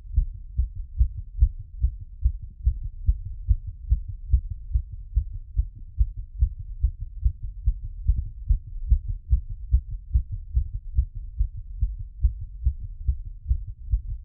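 Human heartbeat heard through a stethoscope, a quick, steady rhythm of low thumps, raised after a workout and squats.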